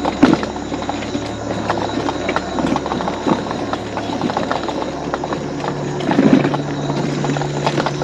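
Electric mobility scooter driving over a rough, bumpy trail: a steady motor hum under constant rattling and knocking as it jolts over the uneven surface, with heavier bumps right at the start and about six seconds in. The motor's hum rises in pitch about five and a half seconds in.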